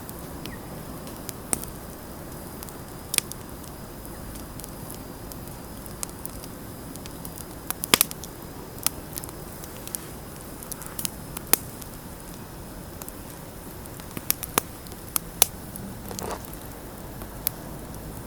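Wood bonfire crackling: irregular sharp pops and snaps over a steady low rumble of burning, with the loudest pops about eight seconds in and again near fifteen seconds.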